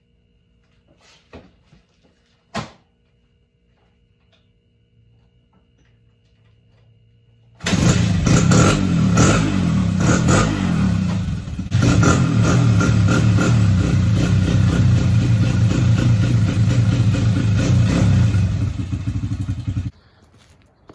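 Honda XR100 dirt bike's single-cylinder four-stroke engine comes in suddenly about a third of the way through and runs loud and steady for about twelve seconds, dipping once briefly, then cuts off abruptly near the end. Before it, two sharp clicks.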